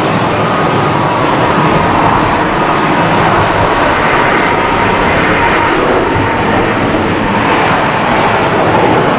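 Boeing 777-300ER's twin GE90-115B turbofans at takeoff thrust as the airliner rolls down the runway: a loud, steady jet roar with a thin whine running through it.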